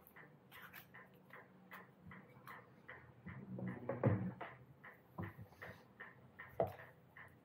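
Cardboard packaging being handled and set down on a wooden table, with rustling and a knock about four seconds in and another sharp knock later on. A light, regular ticking, about two to three ticks a second, goes on the whole time.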